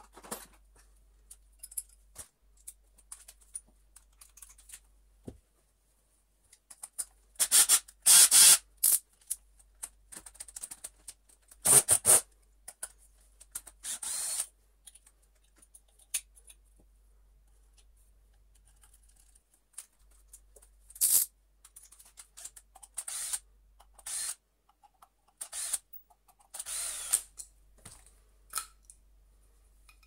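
Handling noises from a vacuum cleaner motor being taken apart by hand: scattered clicks and clinks of screws, tools and metal and plastic parts, broken by a few louder scraping bursts about a second long.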